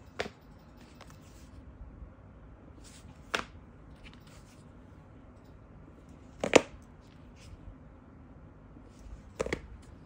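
Handling of boxed lighters in cellophane-wrapped cardboard cases: four short sharp clicks and crinkles about three seconds apart, the third the loudest.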